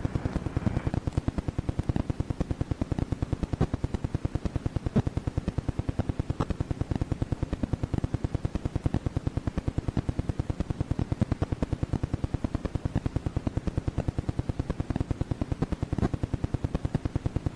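Fast, even mechanical clicking, about five clicks a second without a break, from fire alarm telegraph equipment in a dispatch office.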